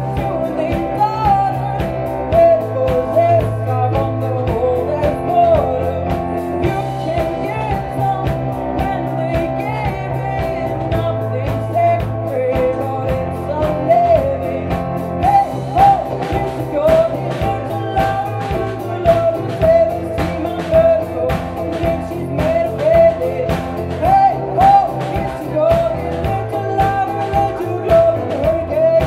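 Live band playing a rock song: a woman singing into a microphone over keyboard and drums, with a steady beat.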